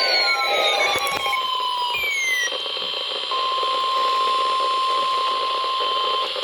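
Electronic emergency alert tones: falling tone glides over the first two seconds, then a steady single beep held for about three seconds that cuts off near the end, over a hissing background.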